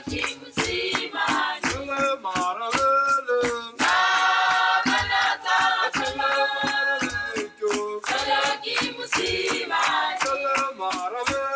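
Background music: a choir of voices singing over a steady percussive beat.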